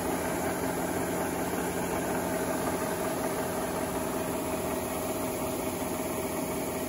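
Rice combine harvester running steadily while its unloading auger pours harvested rice into a bulk bag: a continuous, even machine hum with a few steady tones.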